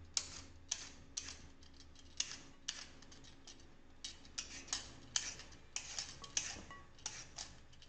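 Vegetable peeler scraping the skin off a raw sweet potato in short, irregular strokes, about two a second.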